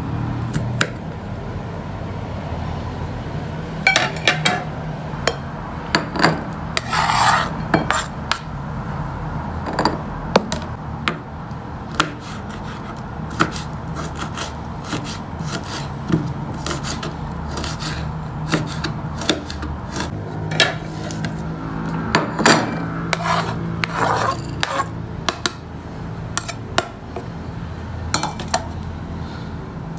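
Kitchen knife slicing chili peppers on a plastic cutting board: irregular sharp taps of the blade on the board, with a steady low hum underneath.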